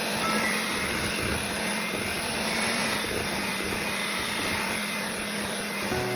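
Electric hand mixer running steadily, beating cream cheese filling.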